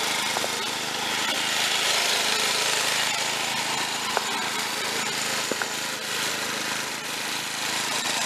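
Snapper rear-engine riding mower's small engine running steadily as the mower drives across wet grass, with a few faint clicks.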